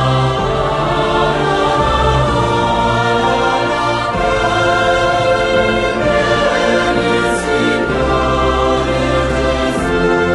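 Slow sacred choral music: a choir singing long held chords over low sustained bass notes.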